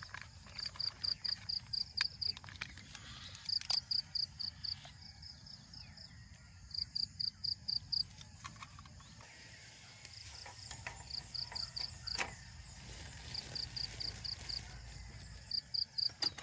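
An insect chirping in short trains of quick, high pulses, about five a second, each train repeating every couple of seconds. A few sharp clicks fall in between.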